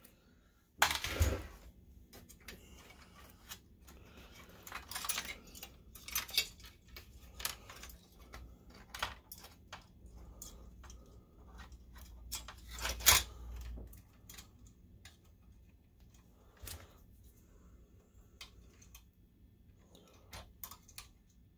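Scattered clicks and light metallic clinks of hand work on an opened DLP projector's insides: sheet-metal brackets, screws and needle-nose pliers being handled. Two louder knocks stand out, one about a second in and one a little past the middle.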